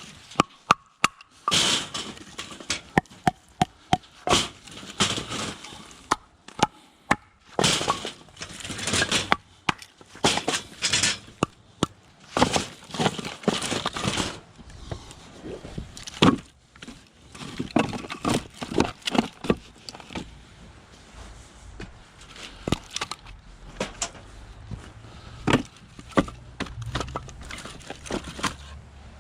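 Split hardwood firewood being handled and stacked: pieces knock and clatter against each other in irregular sharp clunks, with scraping and rustling between them, growing sparser near the end.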